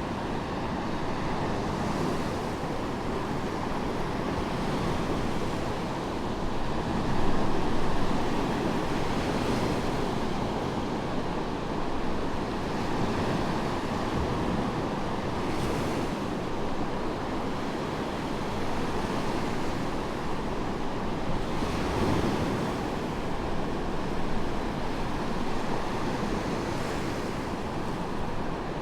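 Medium waves breaking and washing up on a sandy beach: a continuous surf rush with a few louder breaking waves, the loudest about eight seconds in.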